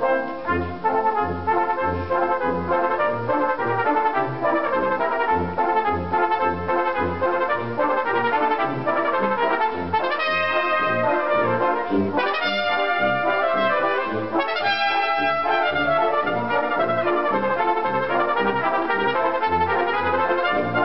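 A cornet duet with brass band accompaniment: the two cornets play over the full band while the low brass keeps up a regular pulse of bass notes. Near the middle come three quick runs of notes.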